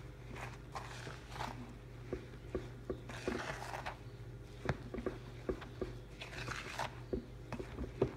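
A spatula stirring thick, salt-filled hot process soap in a ceramic slow-cooker crock: irregular gritty crunching and scraping with short clicks as the spatula works through the paste.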